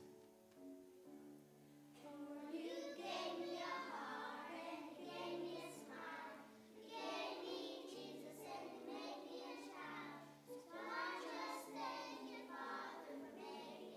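A group of children singing a song together over instrumental accompaniment. The accompaniment is heard mostly alone at first, and the voices come in strongly about two seconds in.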